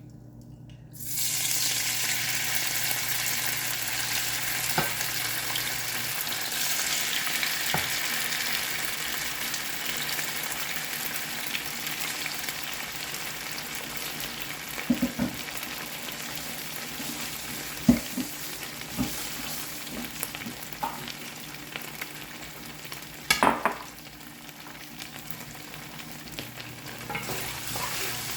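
Seasoned shrimp hitting hot peanut oil and sizzling: the sizzle starts suddenly about a second in and then runs on as a steady frying hiss that eases slightly. A few sharp clinks sound partway through, the loudest near the middle and about two thirds of the way in.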